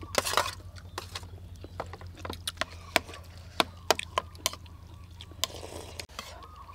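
Metal spoons clinking and scraping against ceramic plates during a meal: many short, sharp clicks at an irregular pace.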